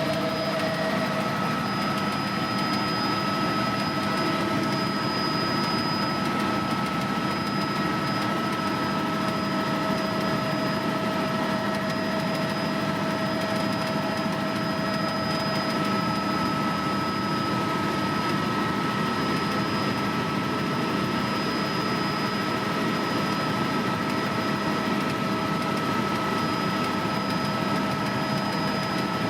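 Helicopter in steady flight heard from on board: continuous engine and rotor noise with several steady whining tones, unchanging throughout.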